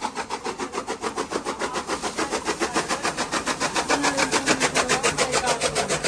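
Fodder chaff cutter running and chopping sugarcane tops as they are fed in, a steady fast beat of about eight pulses a second that grows a little louder over the stretch.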